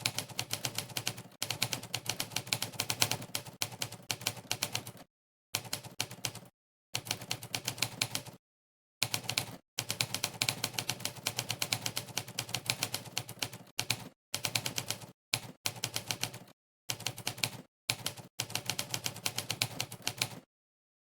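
Fast touch typing on a Rapoo computer keyboard: rapid keystroke clicks in runs, broken by several short silent pauses, stopping about 20 seconds in.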